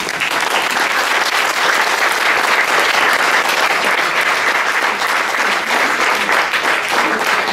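An audience applauding steadily after a talk, a dense, even clapping that starts suddenly.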